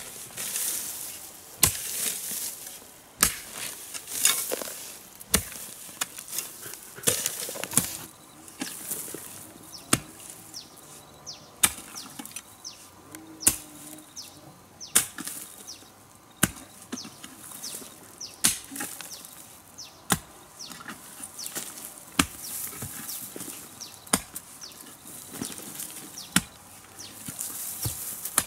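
A hand digging tool strikes soil at a steady pace, about one blow every one and a half to two seconds. Fainter rustling and scraping fills the gaps between blows.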